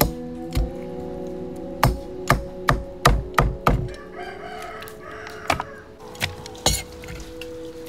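Steel meat cleaver chopping through boiled chicken, bone and all, onto a wooden chopping block: a run of sharp chops, about eight in the first four seconds, then a few more spaced out.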